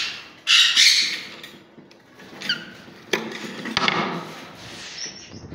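Pet parrots giving harsh squawks, a loud one about half a second in and another about three seconds in, with short chirps between. A few sharp wooden knocks from the wooden nest box being handled.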